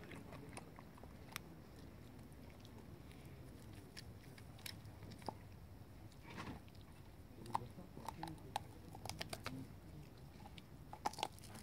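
Czechoslovakian wolfdog gnawing and chewing a bone: faint, irregular sharp clicks and cracks of teeth on bone, more frequent in the second half.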